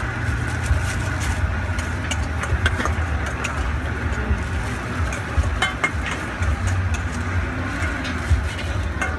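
Steady low rumble under the scene, with scattered light clinks of a spoon against a steel mixing bowl as salad is scooped into a plastic bag.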